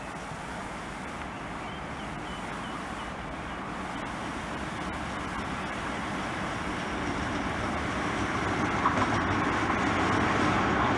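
British Rail Class 56 diesel locomotive hauling a train of hopper wagons as it approaches, its engine and the train's running noise growing steadily louder.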